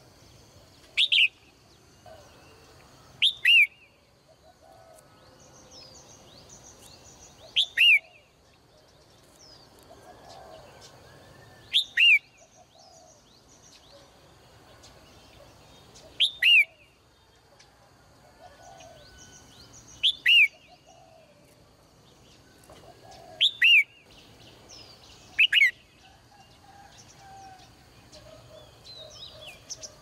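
Caged red-whiskered bulbul calling: loud, sharp, downward-sweeping notes, mostly in quick pairs, repeated about every four seconds, with fainter chirps between them.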